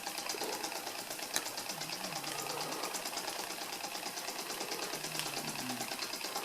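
Cyldon 13/2 model steam engine running with its steam pipe freshly repaired, making a fast, even ticking chuff of about ten beats a second.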